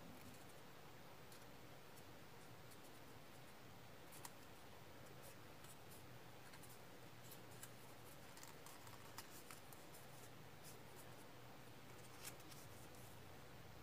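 Faint crinkling and small irregular clicks of origami paper being folded and pressed between fingertips, over a low steady hiss.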